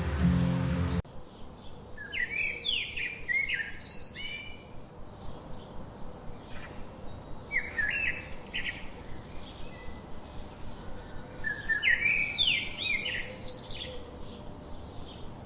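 Background music that cuts off about a second in. It is followed by a songbird singing a short phrase of quick rising notes three times, with fainter bird chirps between the phrases.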